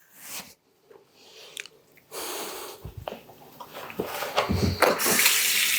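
Kitchen sink tap running, getting louder about five seconds in, with a few knocks and clatters before and under it.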